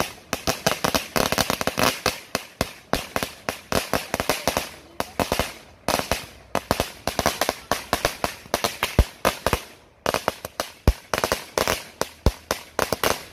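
A long string of firecrackers going off in rapid, irregular sharp bangs, several a second, with brief lulls about six and ten seconds in.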